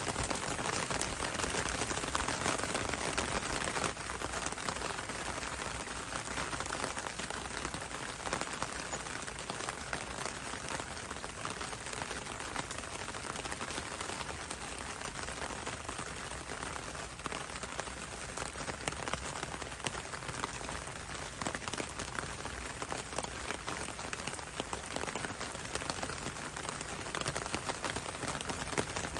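Steady rain falling on leaves, a dense even hiss made of many separate drop hits.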